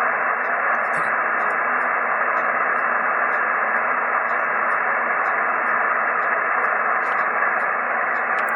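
Amateur radio receiver on single sideband giving steady band noise: an even static hiss with a faint steady whistle under it, heard while no station is transmitting between contacts.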